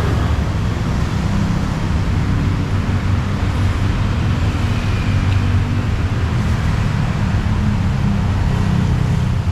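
Steady low rumble of road traffic, with engine hum swelling twice as vehicles pass.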